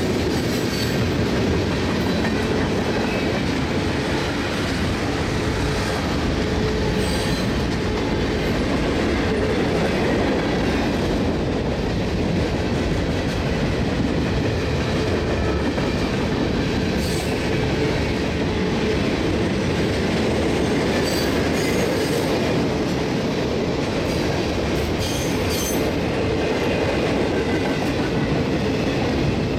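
Freight cars of a manifest train rolling steadily past close by: steel wheels on rail giving a continuous rumble and clatter, with a thin wheel squeal at times.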